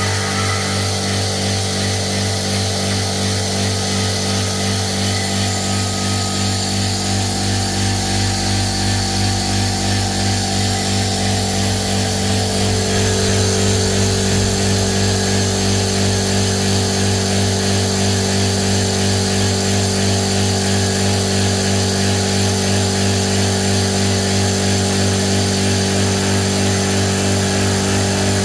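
The motor of a Tagred TA3397 running steadily under test, a continuous hum with a slight pulse; about twelve seconds in it gets a little louder and its tone shifts.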